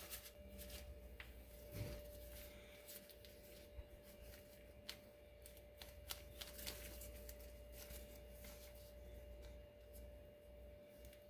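Near silence: faint rustles and small clicks of gloved hands handling a sink cup drain while putty is added to its flange, over a faint steady hum.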